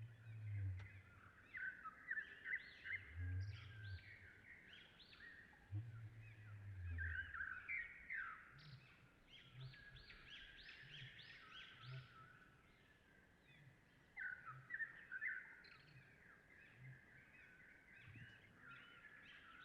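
Birds chirping and calling in quick runs of high notes, over a low rumble that comes three times early on and then gives way to a soft low pulse about once a second.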